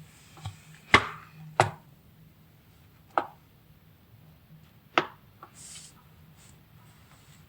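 A few short, sharp knocks at uneven intervals, the loudest about a second in, then a brief hiss.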